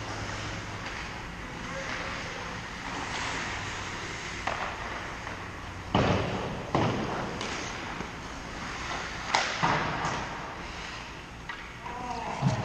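Ice hockey play in an indoor rink: sharp knocks of pucks and sticks ringing off the ice and boards, loudest about six and seven seconds in and twice more around nine and a half seconds, over a steady arena hum.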